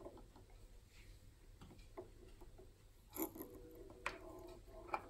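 Faint, scattered light clicks and rustles of hands handling thread and the bobbin winder on a sewing machine, the most noticeable a little after three seconds and again around four seconds.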